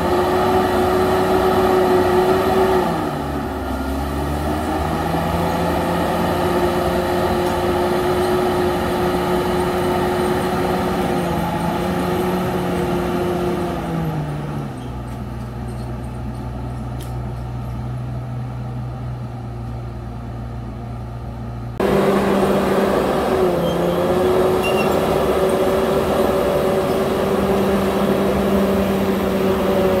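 Komatsu D68ESS crawler dozer's diesel engine running at working speed, its pitch dipping briefly a few seconds in. About halfway through it drops to a lower, quieter speed, then jumps abruptly back to the higher working pitch about two-thirds of the way through.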